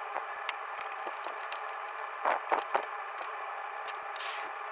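Small scrapes and clicks of a part being handled and pressed back into place inside an open stereo receiver's chassis, over a steady hiss.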